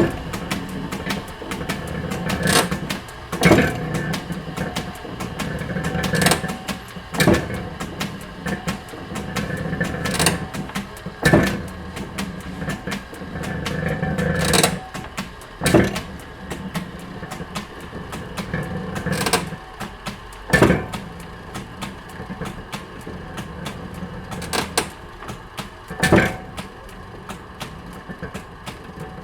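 Factory machinery running with a steady hum, broken by frequent irregular clicks and clanks, a few of them sharp and loud.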